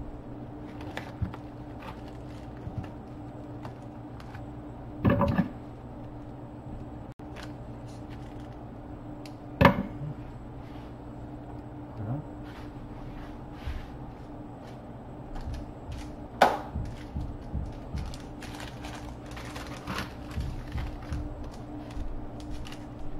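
Kitchen handling sounds: a plastic food package being opened and items knocked down on the counter, with scattered clicks and two sharp knocks, the loudest about ten and sixteen seconds in, over a steady low hum.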